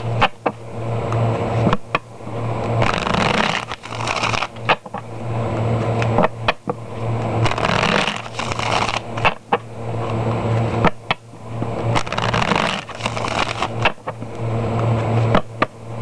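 A deck of tarot cards being shuffled by hand on a cloth-covered table: repeated rustling shuffles, each ending in a sharp click, about every one and a half seconds.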